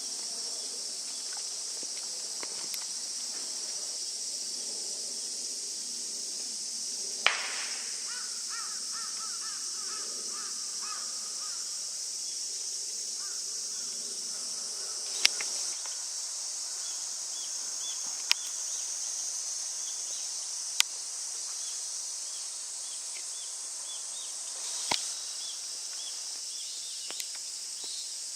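Steady, high-pitched chorus of insects, with a bird calling in a quick run of short notes about eight seconds in. A few sharp clicks are spaced out through it.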